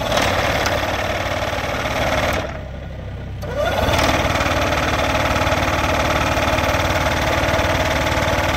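Hydraulic post-driver head on a Bobcat mini excavator rapidly hammering a 6-inch wooden post down into hardpan, over the excavator's running engine. The hammering stops about two and a half seconds in and starts again about a second later.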